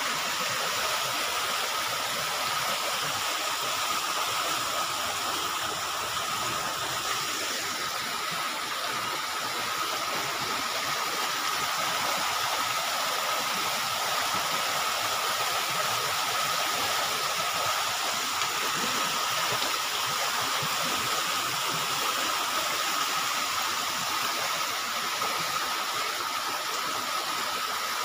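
Heavy rain pouring steadily, mixed with the rush of floodwater flowing past; a thin steady high tone runs underneath.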